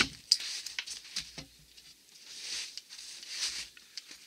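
Wetterlings Bushman axe biting into a very dry beech round being split: a sharp strike at the start, a few faint knocks and cracks of wood, then another sharp strike near the end.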